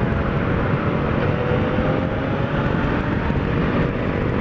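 Yamaha XJ motorcycle running at highway cruising speed, heard from the bike itself, with heavy wind rush over the microphone; the engine note rises slightly in the middle as it gains a little speed.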